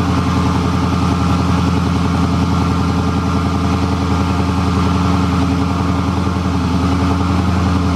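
An engine running steadily at a constant speed, like an idle.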